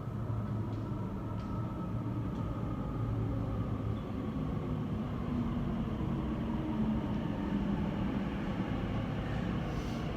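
Elizabeth line Class 345 electric train running at an underground platform: a steady low rumble with a traction-motor hum that shifts in pitch partway through.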